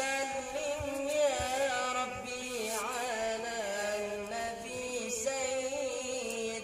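A young man singing sholawat, an Arabic devotional song in praise of the Prophet, solo into a handheld microphone. He sings in long held notes with wavering, ornamented turns, starting a new phrase about every two to three seconds.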